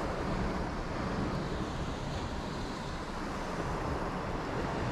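Steady wash of sea surf with wind buffeting the microphone, a fluctuating low rumble under an even hiss.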